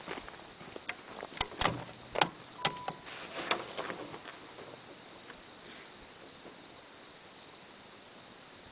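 Crickets chirping in a steady, high, pulsing trill, with a few scattered sharp clicks in the first few seconds.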